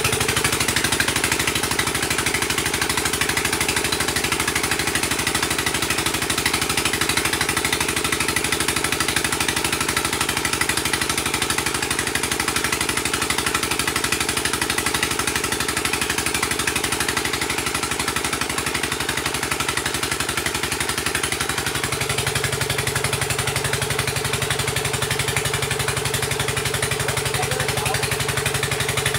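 Engine of a water-well drilling rig running steadily under load as the drill bores deep. Its low note shifts a little about three quarters of the way through.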